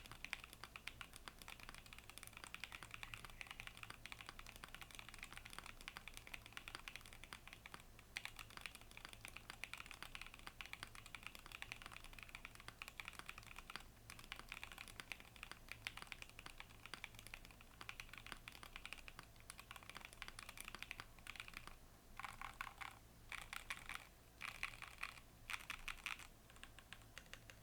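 Fast, continuous typing on an SBL60 mechanical keyboard with stock Gateron Cream Soda switches in a UHMWPE plate and no foam, the keys clacking in quick succession. Near the end the typing breaks into a few short flurries with brief gaps between.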